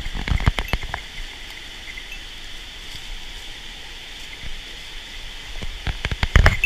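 Steady rush of the Nippara River, a mountain stream, with sharp clinks and knocks during the first second and again near the end.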